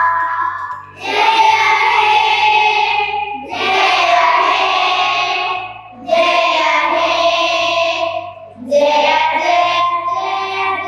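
A group of schoolchildren singing together in unison into microphones, in phrases of two or three seconds with brief breaths between them.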